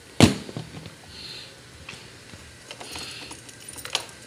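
Yamaha Mio i 125s scooter seat slammed shut over the under-seat storage compartment: one loud thud as it latches, with a few small knocks after it. Light clicks of handling follow, the last near the end.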